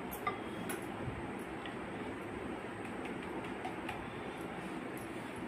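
Steady rushing of a lit gas stove burner under a pan of cooking paratha, with a few light taps near the start.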